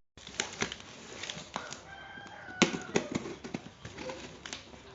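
Several sharp clicks and knocks of things being handled, with a bird calling in the background about two seconds in.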